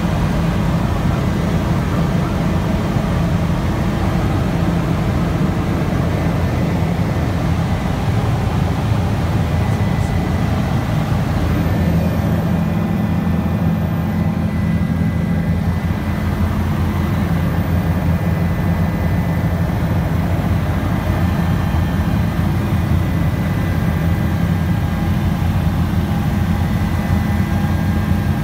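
Helicopter in flight heard from inside the cabin: the rotor and engine run steadily as a dense, fast low throb, with a faint steady high whine joining about halfway through.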